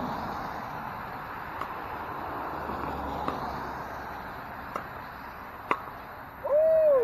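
Pickleball paddles striking the plastic ball in a rally: four sharp pocks one to two seconds apart, the last the loudest. Near the end comes a short, loud pitched call that rises and then falls.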